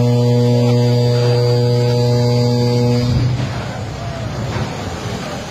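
A ship's horn sounding one long, loud, steady blast that cuts off about three seconds in, leaving a mixed noisy background.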